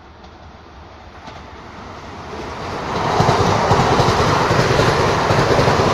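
Hyundai Rotem HRCS2 electric multiple unit running through a station at speed. The rush of wheels on rail and air swells over the first three seconds as the train comes up, then stays loud and steady as the carriages pass close by.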